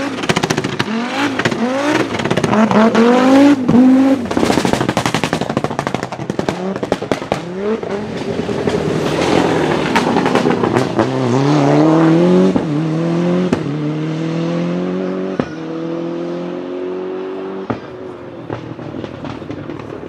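Rally car engines revving hard, their pitch climbing again and again through gear changes, with sharp exhaust bangs and crackles between the shifts.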